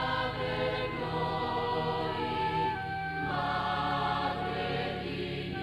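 Slow choral music: a choir singing long held chords that change every couple of seconds.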